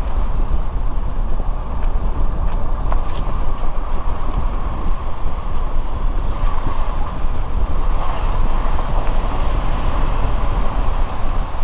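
Suzuki Jimny driving along a mountain road: steady engine and road rumble with scattered light ticks and knocks from the tyres and body.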